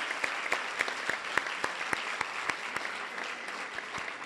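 Audience applauding, many hands clapping at once, dying away toward the end.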